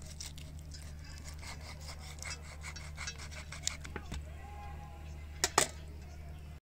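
Kitchen knife sawing and scraping through raw chicken at the joints in short repeated strokes. A few sharp metallic clicks follow, the loudest pair about five and a half seconds in, as the knife knocks against the steel tray. A low steady hum runs underneath.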